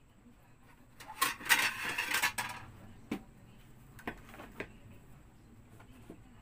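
Dishes and kitchenware clattering in a busy burst about a second in, then a few separate knocks as a plastic plate is picked up and set down.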